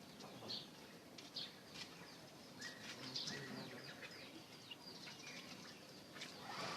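Oriental magpie-robin (kacer) singing faintly: scattered short chirps and whistled notes, some sliding downward.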